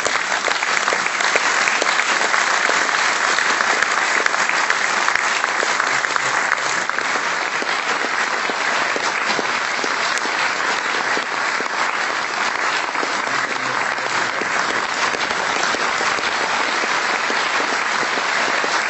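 Audience applauding, steady sustained clapping from many people.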